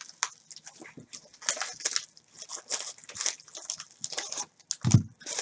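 Plastic bubble mailer crinkling and rustling in irregular bursts as hands work the contents out of it, with a single dull thump near the end.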